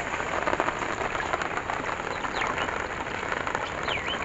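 Floodwater gushing and splashing as it pours into a mesh fishing net, a steady crackling rush of water. A few short chirps sound over it from about halfway.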